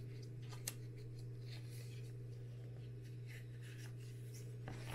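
Faint rustling and light ticks of glossy magazine pages being turned in a binder, with a small click about two-thirds of a second in, over a steady low hum.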